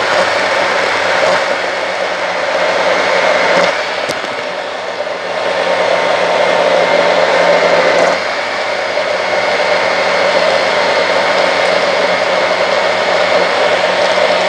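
Electric mixer-grinder (blender) motor running steadily, blending a liquid mango, cream and condensed-milk mixture. It dips briefly about four seconds in and changes slightly again about eight seconds in.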